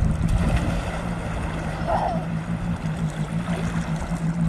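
Jet ski engine running at a steady, even pitch as the watercraft cruises across the water, over a low rumble of wind and water noise.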